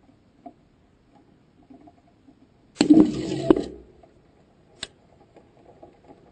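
Onboard audio from a rocket in flight: faint crackling, then a short loud burst of rushing noise about three seconds in, with two sharp clicks in it, and a single click a second later.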